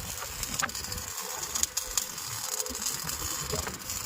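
CO2-shielded MIG welding arc on a root pass in mild steel plate, a steady dense crackle of fine rapid snaps with a few sharper pops.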